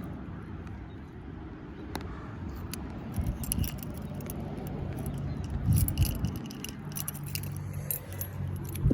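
Keys and a metal keychain jingling and clicking as the keychain is worked onto a key ring, with a cluster of clinks about six seconds in, over a low background rumble.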